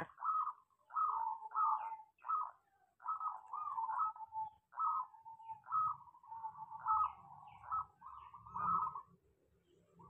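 Zebra dove (perkutut) singing its cooing song, phrase after phrase with short breaks, falling silent about nine seconds in.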